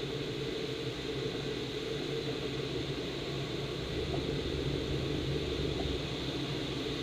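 Steady rush of air over a glider's canopy in gliding flight, heard from inside the cockpit: an even, unbroken noise with no engine.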